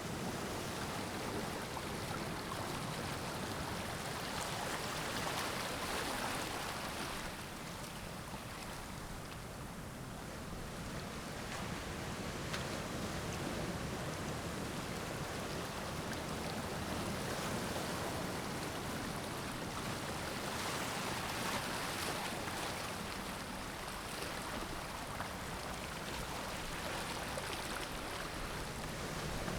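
Water flowing and trickling through stones at the seashore, a steady rushing wash with gentle swells in loudness.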